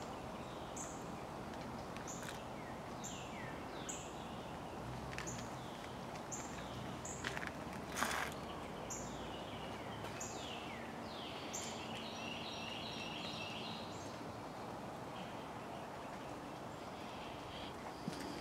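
Outdoor background of birds calling: a series of high whistled notes, each sliding downward, repeated every second or so, with a short rapid chirping trill near the middle, over a steady low outdoor hum. A soft knock about eight seconds in.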